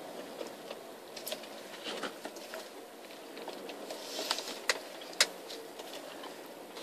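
Cabin noise of a moving car, a steady road-and-engine hum, with several sharp clicks or knocks, the loudest about five seconds in.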